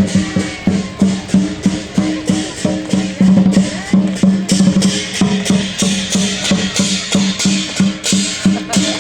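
Music with a fast, even percussive beat of sharp clicks, about four a second, over a low repeating bass note, picked up by an HTC U Ultra phone's microphone.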